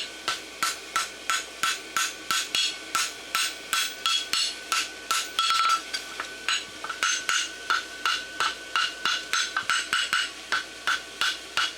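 Hand hammer striking a hot steel bar shoe on an anvil in a steady rhythm of about three blows a second, each with a ringing note. The blows are forge-welding the seam of the bar together.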